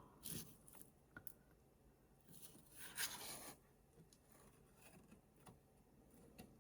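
Quiet handling noises of craft materials: a short rustling scrape about three seconds in and a few faint clicks and taps.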